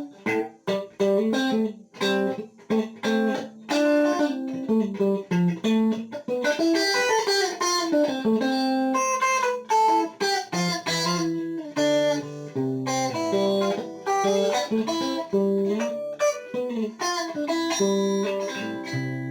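Electric guitar played through a compressor pedal that has just been switched on: a run of quickly picked single-note lines with even, sustained notes, ending on notes left ringing.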